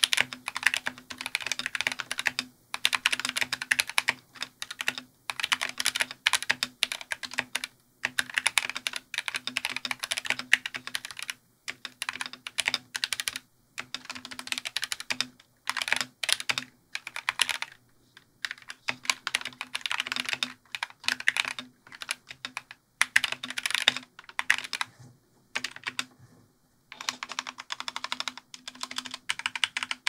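Typing on a stock Glorious GMMK 2 65% mechanical keyboard with factory-lubed Glorious Fox linear switches: fast runs of keystrokes broken by short pauses, with one longer pause near the end.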